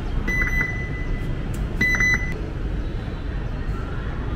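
Metro exit fare gate beeping an error after a contactless card is tapped on its reader instead of being inserted into the slot: two sets of quick high electronic beeps about a second and a half apart, with a thin steady tone between them, over a low station hum.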